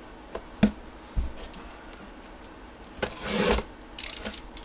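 Handling and opening of a cardboard box and its packaging. A sharp click, a thump, then a rustling scrape about three seconds in, and a few small clicks after it.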